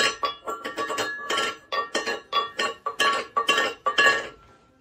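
Background music of quick, chiming struck notes at a steady beat, fading out near the end.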